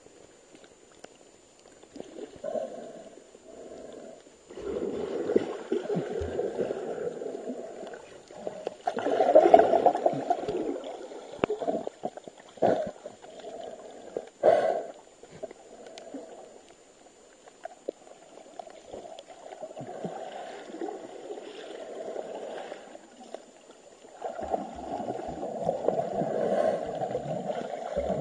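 Muffled water sloshing and gurgling heard underwater, swelling and fading several times, with a couple of sharp knocks midway.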